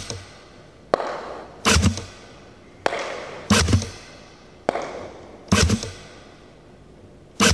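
A rapid series of sharp cracks from shooting at a target: seven in all, roughly one a second and unevenly spaced, each cutting in suddenly and dying away over about half a second.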